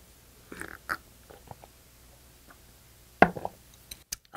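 A soju shot being swallowed with small gulping mouth sounds, then the glass shot glass set down hard on the table with one sharp clunk a little after three seconds in.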